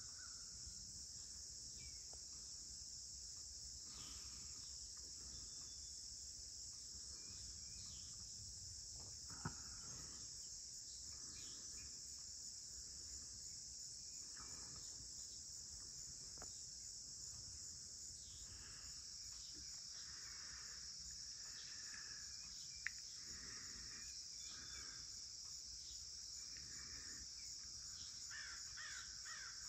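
A steady, high-pitched chorus of insects singing at dawn, with scattered bird calls that grow more frequent in the second half, and crows cawing near the end. Two brief sharp ticks stand out, about nine seconds in and again after about twenty-three seconds.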